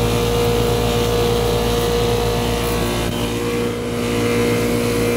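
2004 Payne 12 SEER outdoor air-conditioning unit running loudly, a steady low hum with a strong steady high tone. Its compressor has been making a rattling racket, which the owner suspects was caused by the unit running in 27-degree weather.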